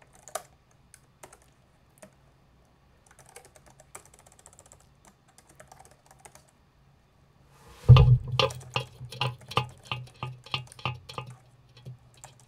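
Typing on a computer keyboard: a few scattered keystrokes, then a faster run of louder keystrokes, about three a second, starting around eight seconds in.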